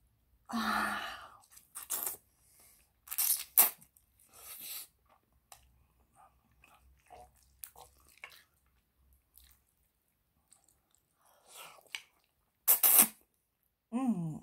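Chewing and slurping of fettuccine Alfredo noodles, with wet mouth sounds in separate bursts and quiet gaps between them, and a few sharp, loud clicks.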